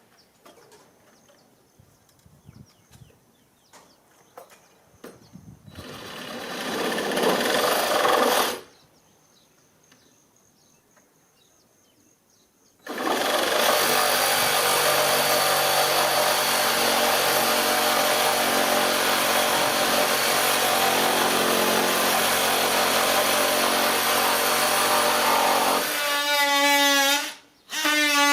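A power tool running in two stretches: a short one of about three seconds that swells in loudness, then after a pause a long steady run of about thirteen seconds with a constant hum. Near the end it gives way to a pitched whine that shifts in pitch.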